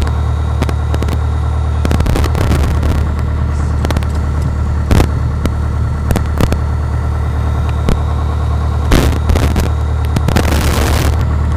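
Piper PA-28-161 Warrior's four-cylinder Lycoming engine running steadily, a loud low drone heard inside the cabin, with a few sharp knocks and a rustle as things are handled in the cockpit.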